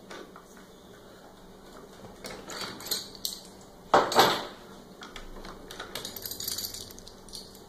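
Metal tools and fasteners being handled while a milled workpiece is freed from a CNC router bed: scattered light clicks, two loud clanks about four seconds in, then a run of small rattling clicks.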